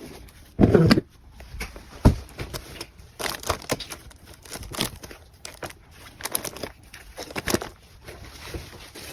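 Hands handling and packing small items in plastic packaging, with irregular rustling, crinkling and clicks. There is a heavier rustling knock about half a second in and a sharp click around two seconds.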